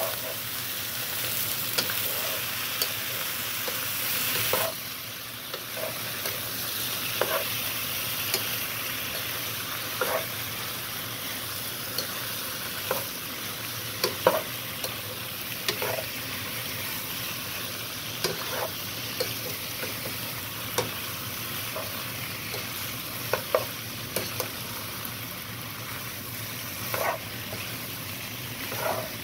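Pasta and shredded chicken frying and sizzling in a pan, with a utensil clinking and scraping against the pan every second or two as the food is stirred. The sizzle eases slightly about five seconds in.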